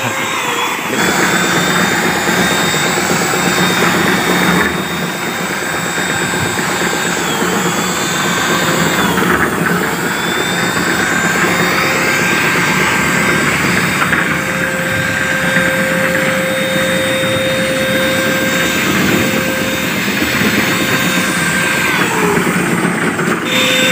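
Handheld electric paint sprayer running steadily with a high motor whine and a rushing hiss while spraying paint. Its pitch dips and breaks briefly a few times.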